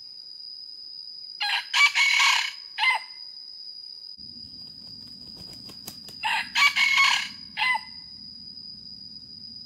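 Red junglefowl rooster crowing twice, about five seconds apart, each crow a short broken call ending in a clipped last note. A steady high-pitched tone runs underneath.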